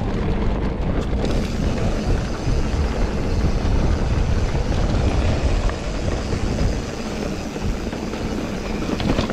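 A mountain bike rolling along a pebble-surfaced singletrack trail: a steady, loud rush of tyre and trail noise with a heavy low rumble, mixed with wind noise on the action camera's microphone.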